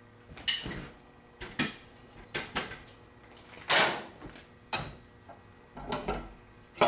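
Irregular knocks and clunks of parts being handled on a manual screen-printing press, an aluminium screen frame being set into its clamp: about eight separate knocks, the loudest around the middle.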